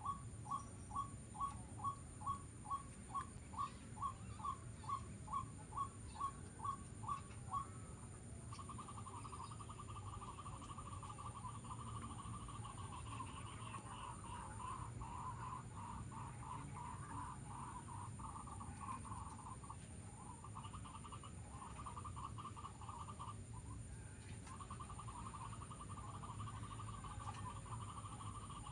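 A bird calling: a steady series of short, evenly spaced notes, about two or three a second. From about eight seconds in it changes to a fast, continuous trill, broken now and then by short pauses.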